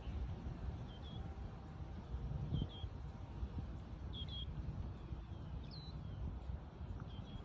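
A bird repeating a short, high two-note chirp about every second and a half, over a steady low outdoor rumble.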